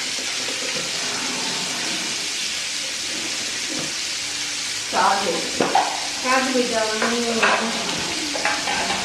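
Chicken pieces searing in butter in a frying pan, a steady sizzle.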